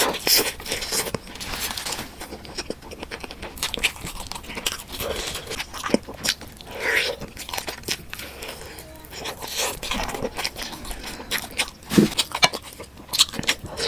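Close-miked eating: a person chewing and biting food, with irregular wet mouth clicks, smacks and small crunches.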